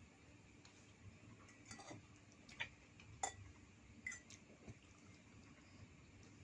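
Faint, scattered light clicks and taps of kitchen utensils against cookware, about five over a few seconds, over a low steady background hum.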